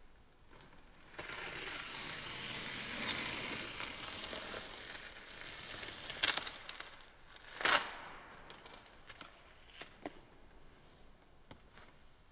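Masking tape being peeled off paper: a crackling, tearing stretch lasting several seconds, ending in two sharp snaps, the second the loudest. A few faint handling clicks follow.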